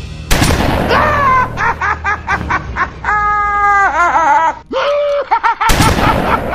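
A man's exaggerated, cartoonish villain laugh: a run of quick choppy "ha-ha" pulses, then a long held note that breaks into wobbling cackles. A sharp whoosh-like burst comes just before the laugh, and another near the end.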